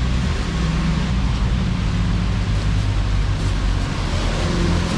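Road traffic going by close at hand, with the steady low hum of vehicle engines.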